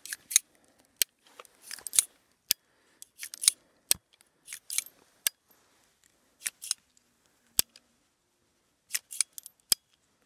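Heritage Arms Rough Rider .22 single-action revolver's action being worked by hand: a string of sharp metallic clicks from the hammer and cylinder, coming at irregular intervals, often in quick pairs, with a short pause before a last cluster near the end.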